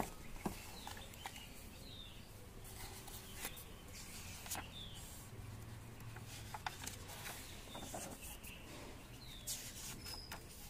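Faint, scattered chirps of small birds, with a few light clicks and paper sounds from a sketchbook being handled and a page turned.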